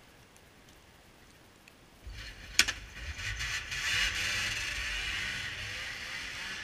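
1979 Ski-Doo Everest 444 LC snowmobile's two-stroke engine starting up about two seconds in, with a sharp click just after, then revving as the sled pulls away and slowly fading as it moves off.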